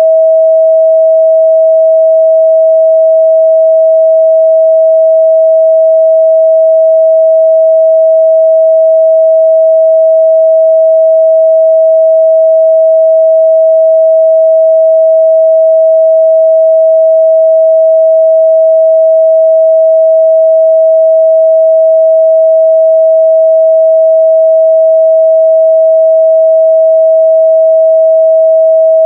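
A steady, loud 644 Hz pure sine-wave test tone, held at one unchanging pitch.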